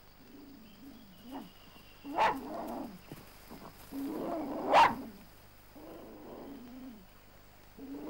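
Dingoes fighting, snarling in five short bursts; the loudest, sharpest burst comes about five seconds in.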